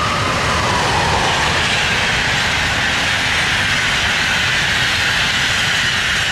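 Intercity train headed by a DB Class 101 electric locomotive passing close at speed: a whine from the locomotive drops in pitch over the first second or so as it goes by, then the coaches give a steady loud rush of wheels on rail.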